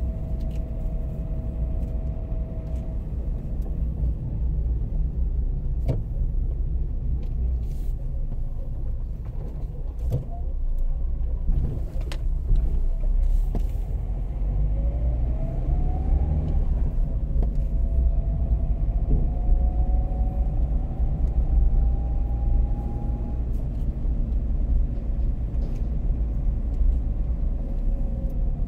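Car driving on city streets, heard from inside the cabin: a steady low engine and road rumble, with a faint whine that rises in pitch about halfway through and then holds.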